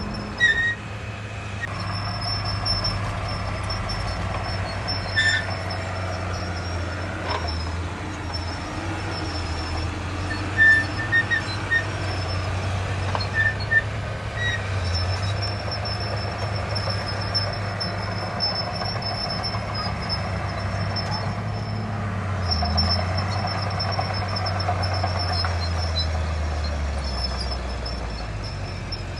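Heavy diesel earthmoving machinery working: a steady low engine rumble with thin, high-pitched squeaks coming and going, and a few sharp knocks a little before halfway.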